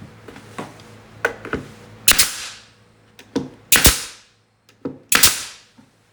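A hammer driving nails into wood: a few light setting taps, then three hard blows a second or more apart, each ringing briefly.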